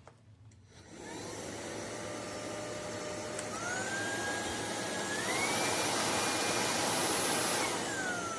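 UNINELL UV3 cordless stick vacuum running, starting up about a second in. Its motor whine steps up in pitch twice and gets louder, as it is switched up through its power modes toward turbo, then falls back down near the end.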